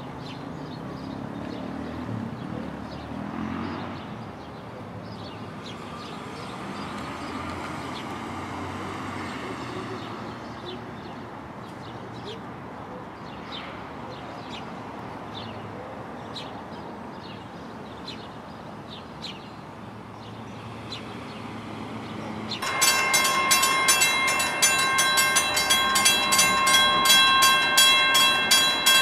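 Quiet station background with faint bird chirps, then about 23 seconds in a railroad bell starts ringing loud and fast, about four strikes a second, signalling an approaching train.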